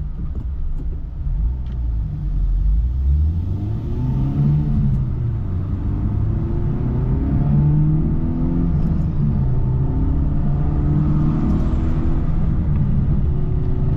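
Honda Civic Type R's turbocharged four-cylinder engine pulling under acceleration. Its note climbs and falls back several times as it is driven through the gears of its manual gearbox.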